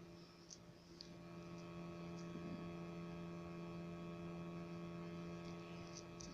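Steady low electrical hum with a few faint clicks in the first couple of seconds.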